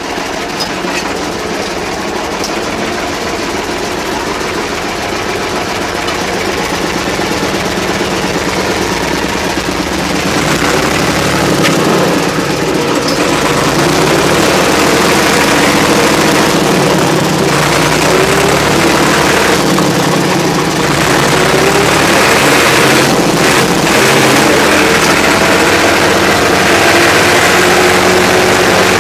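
IMT 549 DeLuxe tractor's diesel engine running as the tractor is driven and shifted through its gears, the engine note dropping and rising again at each shift. It gets louder toward the end.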